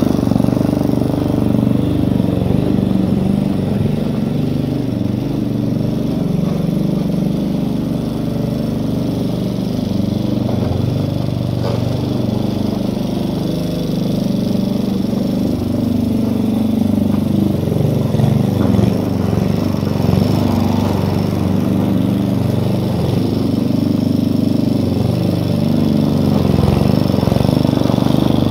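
Yard Force petrol walk-behind lawn mower engine running steadily while cutting long grass, its pitch wavering slightly as it is pushed back and forth.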